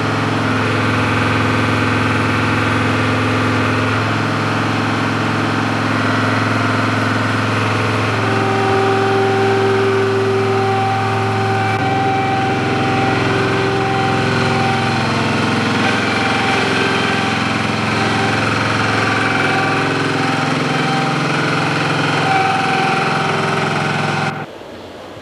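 An engine running steadily, its pitch shifting a few times, then cut off abruptly near the end.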